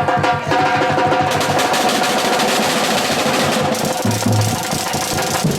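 Music with fast, dense drumming under a few steady held notes.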